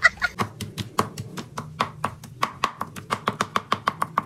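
Chef's knife rapidly chopping raw meat into mince on a plastic cutting board: a fast, even run of sharp knocks, several a second.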